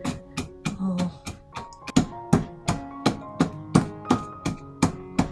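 Wooden pestle pounding and crushing walnuts in a ceramic suribachi mortar, a steady run of knocks about three a second, with background music underneath.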